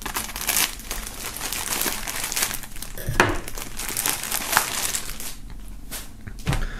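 Plastic foil wrapping crinkling and crackling as it is cut open with a knife and torn off by hand, with one sharper crackle about three seconds in.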